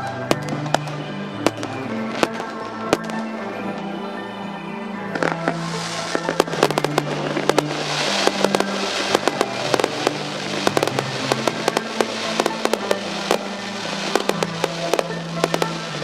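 Fireworks going off in rapid succession, many sharp bangs and pops, with a crackling hiss that swells from about a third of the way in. Music with held low notes plays along underneath.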